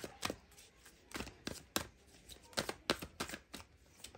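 A deck of oracle cards being shuffled by hand: a run of crisp, irregularly spaced snaps and slaps as the cards are pushed through each other.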